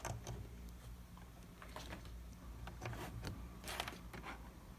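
Faint scattered clicks and light handling noises from an RCA cable being handled and routed to a laptop, a few of them in quick pairs, over a low steady hum.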